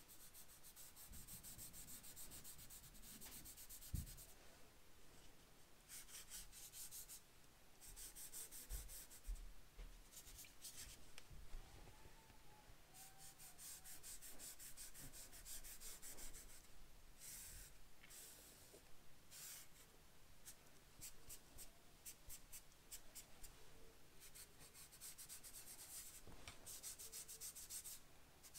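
Fingertips rubbing chalk pastel into paper: a faint dry scratching in stretches of quick back-and-forth strokes that come and go. There is one dull bump about four seconds in.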